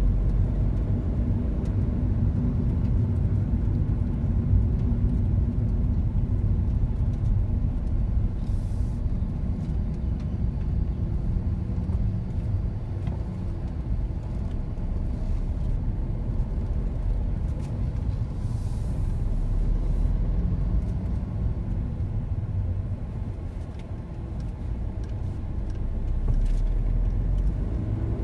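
Road and engine noise heard from inside a moving car: a steady low rumble of tyres and engine, the engine's hum shifting in pitch now and then as the car drives on.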